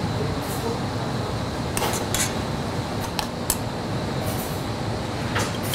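A metal spoon clinks a few times against a small saucepan and a china plate as sauce is spooned out. Under it runs a steady low rumble.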